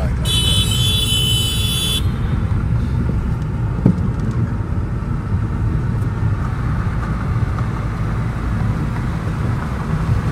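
Road noise inside a moving car: a steady low rumble, with a high-pitched steady tone for about two seconds at the start.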